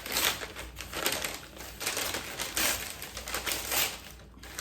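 Pin packaging being opened by hand: a run of irregular crinkles and rustles, easing off shortly before the end.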